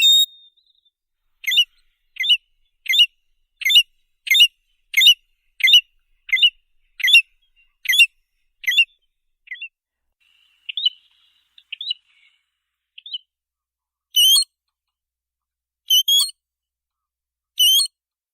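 Shorebird calling: a run of about a dozen short, sharp whistled notes, each sweeping downward, about one every 0.7 seconds, then a few faint notes, then three louder, more widely spaced calls near the end.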